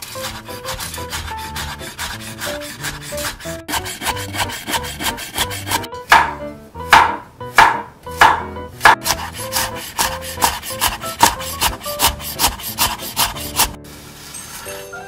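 Kitchen knife slicing cucumber and carrot on a wooden cutting board: a quick run of crisp knocks as the blade meets the board, several strokes a second. A few louder, slower chops come in the middle, and the cutting stops shortly before the end.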